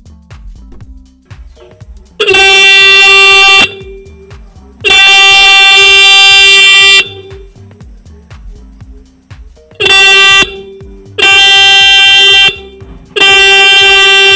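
A 12-volt electric disc horn blows five loud, steady blasts as its lead is touched to the supply. The second blast is the longest and the third is short. The horn is in good working order.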